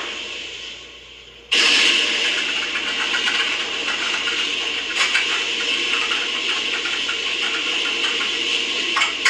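Electronic rocket-engine sound effect from a Toy Story rocket toy. A fading effect dies away, then about a second and a half in a steady, hissing engine rush starts suddenly and holds.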